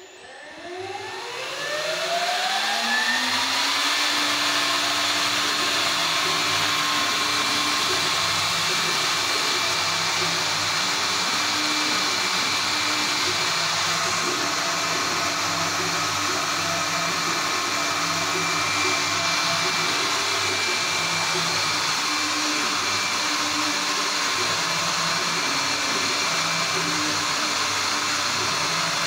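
Mini CNC router's spindle motor spinning up, its whine rising over the first few seconds, then running steadily at speed.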